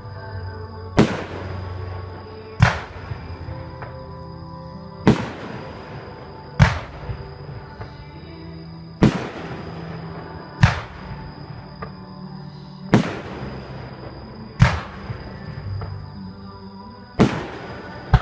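Aerial firework shells bursting: sharp bangs about every two seconds, each trailing off briefly, with music playing underneath.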